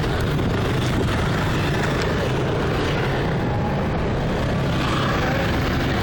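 Steady noise of road traffic going by, heavy at the low end.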